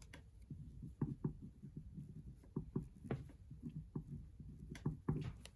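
Ballpoint pen writing on a paper worksheet on a hard surface: faint, irregular short scratches and taps as the letters are formed.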